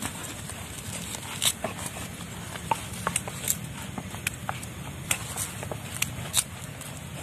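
Stone pestle (ulekan) knocking and grinding in a stone mortar (cobek) as sambal for rujak is pounded. The knocks are sharp and irregular, about one or two a second, some much louder than others.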